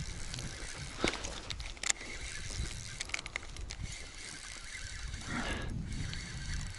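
Spinning reel being cranked while a hooked asp is played on a bent rod, giving scattered clicks and ticks over a steady low rumble.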